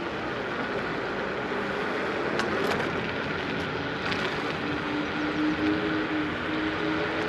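Ausom L2 Max dual-motor electric scooter under way on a paved path: the motors hum with a thin tone that fades and returns about halfway through, over a steady rush of tyre and wind noise, with a few light clicks about two and a half seconds in.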